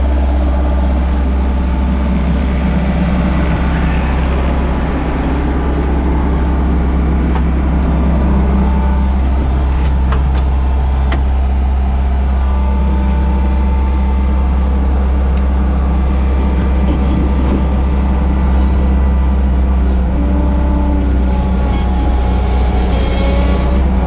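Bobcat 743 skid steer's diesel engine running steadily, with short higher whining tones now and then, around the middle and again near the end, as the machine works.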